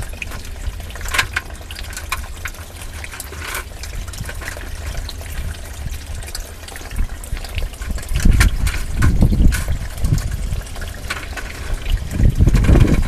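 Storm water trickling and running in a corrugated drain pipe. Heavy low rumbles come in about eight seconds in and again near the end.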